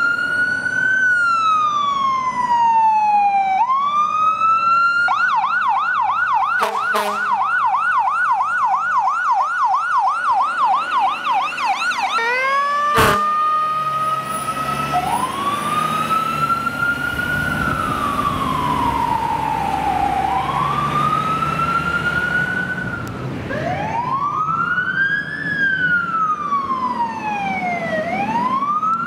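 Fire engine electronic siren, first as a slow rising-and-falling wail, then a fast yelp of about four cycles a second for several seconds, then back to the slow wail, with the truck's engine running low underneath. A sharp click about halfway through.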